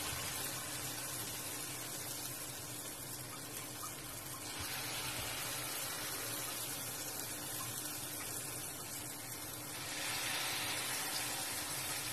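Cooking oil sizzling steadily in a nonstick pan as spoonfuls of eggplant-and-egg patty batter fry, the sizzle swelling twice as more batter goes in.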